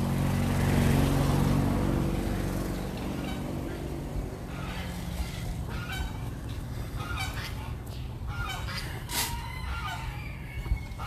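A vehicle motor running with a steady low hum that fades out about four seconds in, followed by geese honking in a run of short calls.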